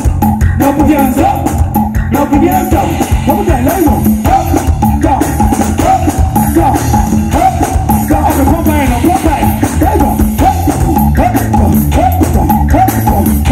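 Loud live band music with singing over a heavy bass line.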